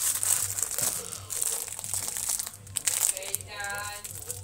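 Candy wrapper crinkling and rustling as it is handled and opened, with dense crackles. About three and a half seconds in, a child's voice sounds one short note.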